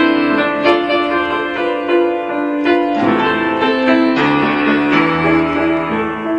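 Instrumental break of a slow Christian hymn between sung verses: a keyboard playing held chords and a melody, with no singing.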